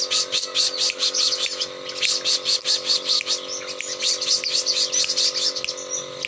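Crimson sunbird chirping in a fast, continuous run of short, high notes, several a second.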